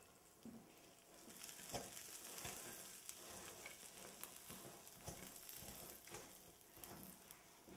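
Faint gritty scraping of a wooden spoon stirring a dry, crumbly filling of ground walnuts and pine nuts in an enamel bowl, with small ticks as the spoon knocks the bowl and nuts.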